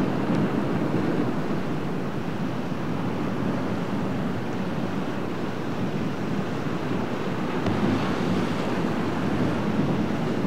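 Waves breaking and churning in rough surf, a steady rush, with wind buffeting the microphone.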